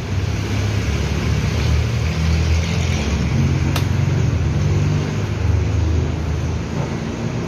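Steady low rumble of vehicle noise, with one sharp click about halfway through.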